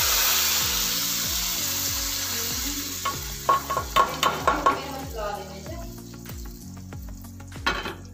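Hot tarka of oil, garlic and red and green chillies poured into a pot of cooked daal, sizzling loudly and dying away over about three seconds. Then a quick run of sharp metal clinks, the pan knocking against the pot's rim.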